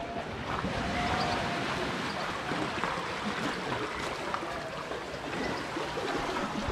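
Steady seaside ambience: small waves lapping at the water's edge with a sea breeze.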